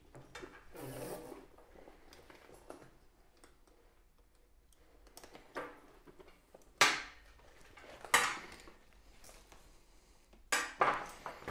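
Handling noise from a suede-and-leather holdall and its shoulder strap being moved about: soft rustling with four sharp clacks, two of them close together near the end.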